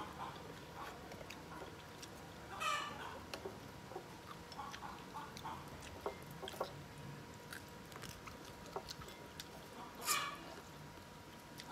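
Chopsticks clicking lightly against bowls while eating, with small chewing sounds. Two short, louder calls cut in, one about three seconds in and a louder one near the end.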